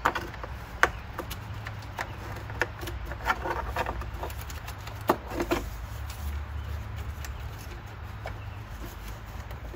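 Plastic electrical connectors being unclipped from BMW VANOS solenoids: a handful of sharp clicks and light knocks at irregular moments, over a steady low rumble.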